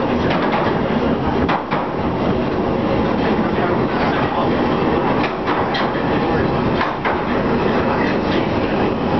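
London Underground 1967 Stock tube train running at speed through a deep-level tunnel, heard from inside the car: a loud, steady rumble of wheels on rail with a few sharp clicks.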